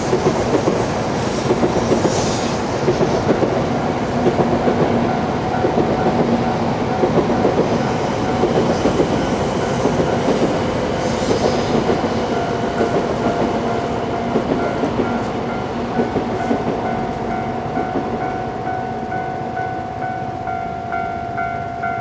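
A train passes over a level crossing, its wheels clattering over the rail joints. A crossing warning bell rings steadily with a fast repeating tone. The bell stands out more in the second half as the train noise eases.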